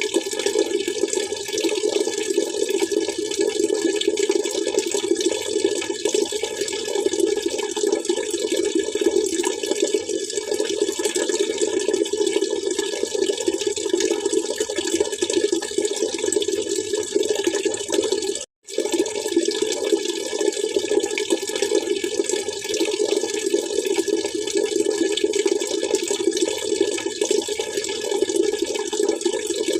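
Water splashing and trickling steadily. The sound cuts out for a split second about two-thirds of the way through.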